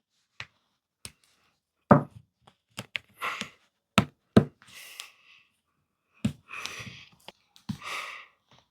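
Plastic Mathlink cubes being clicked together and handled: about ten separate sharp clicks and knocks at irregular intervals, with short rustles of handling in between.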